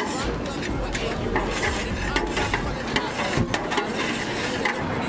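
A metal spatula scraping and clacking against a large metal cooking pan of chopped food, in quick irregular strokes.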